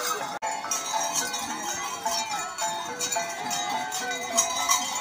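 Metal bells worn by caci whip-fight dancers jingling as they move, over a crowd's mingled voices and calls.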